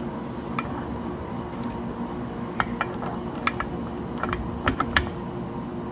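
Scattered metal clicks and taps as a socket and torque wrench are fitted onto the clutch pulley nut of a Honda Navi clutch and worked, over a steady background hum.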